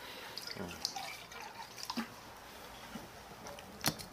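A drink poured into a small metal cup, with light dripping and small clinks. A single sharp click comes near the end.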